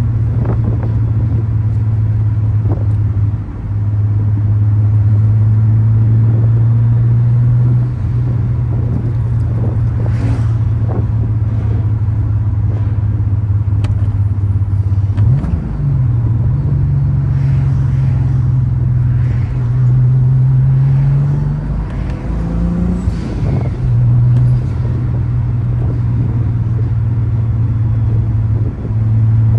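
Turbocharged VR6 engine and exhaust running steadily with a constant low drone, as at cruise. The note dips briefly twice early on and shifts up and down in pitch about halfway through and again near 22 to 24 seconds as the revs change.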